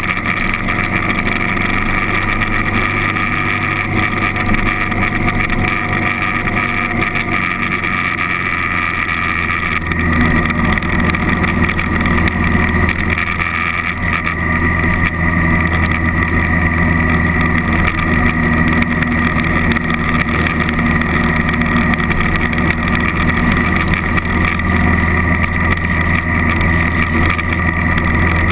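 Honda CRF1000L Africa Twin's 998 cc parallel-twin engine running while the motorcycle rides along the road, heard from a camera on the bike with wind noise over it. The low engine note gets louder about a third of the way in.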